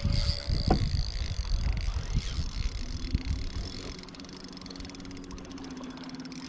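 Irregular knocks and bumps of handling on a fishing boat, with a short squeak about a second in, giving way about three seconds in to a steady low hum.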